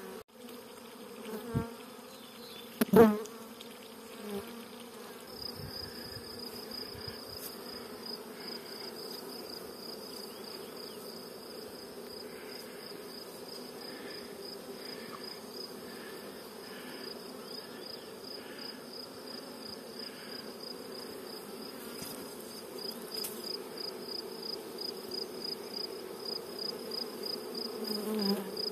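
Honeybee swarm humming, a low, even drone of many bees. There is a sharp knock about three seconds in. From about five seconds on, a high chirp pulses evenly over the hum.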